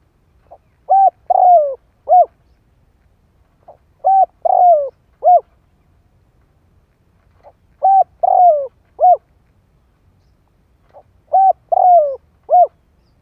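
Spotted dove cooing its territorial song, the decoy call used to provoke wild doves. Four phrases about three and a half seconds apart, each a faint short note followed by three loud coos, the middle one longer and falling in pitch.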